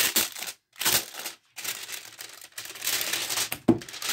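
Packaging around a diary rustling and crinkling in short bursts as it is handled, with one sharp knock near the end.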